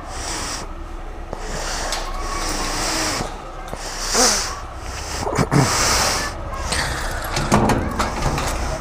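Footsteps, rustling and breathing close to the microphone, with a few louder knocks and scrapes about four to six seconds in and metal clicks of a door padlock and handle being worked near the end. A motorcycle engine idles low underneath, just started cold on ethanol.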